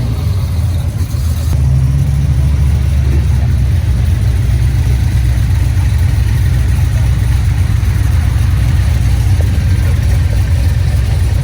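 Steady low rumble of a car engine running, without clear revs or changes in pitch.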